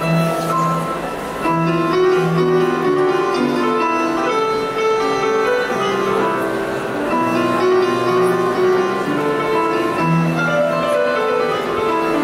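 Mixed choir singing slow, sustained chords, the notes held and changing step by step.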